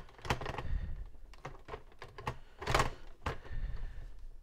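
Plastic stand of an HP Compaq 6000 Pro all-in-one being worked loose and slid off the computer's back panel: a string of plastic clicks, knocks and scraping, heaviest about a third of a second in and again near three seconds.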